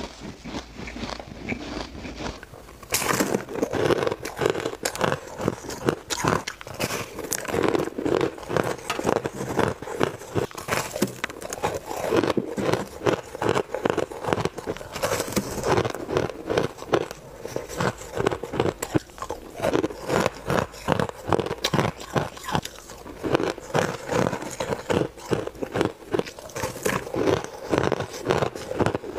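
Chunks of frost-coated ice being bitten and chewed close to a clip-on microphone: a dense, continuous run of crisp crunches and crackles, louder from about three seconds in.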